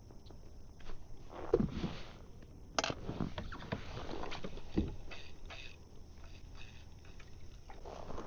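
Tackle being handled in a fishing kayak: scattered knocks, clicks and rustling, with a sharp click about three seconds in and dull thumps against the hull.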